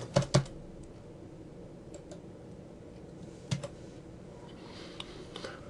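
A quick run of computer keyboard keystrokes at the start, then a few single clicks spaced out, the loudest about three and a half seconds in.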